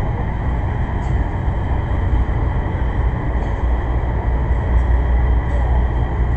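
CSX freight train's boxcars rolling past, a steady low rumble of steel wheels on rail with a few faint clicks.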